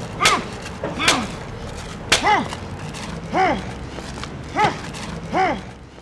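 Six short, high squeaks about a second apart, each rising then falling in pitch, over a low steady hum.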